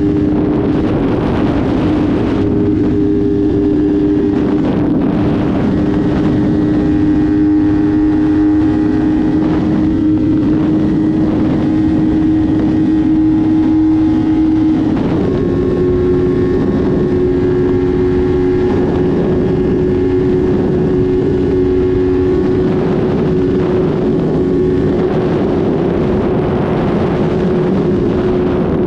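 Motorcycle engine running at a steady speed under heavy wind rush, its hum shifting to a new steady pitch about halfway through.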